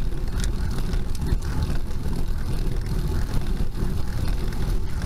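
Steady low rumble of a road bike climbing slowly on asphalt: tyre and road noise mixed with wind buffeting on the bike-mounted camera's microphone.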